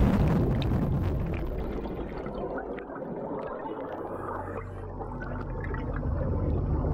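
Underwater rush of air bubbles and gurgling water just after a scuba diver's entry, fading over the first few seconds, with scattered small pops. A low steady drone builds near the end.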